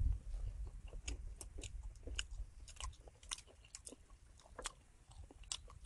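Crispy deep-fried battered shrimp being bitten and chewed: a run of irregular crisp crunches, a few a second, over a low rumble.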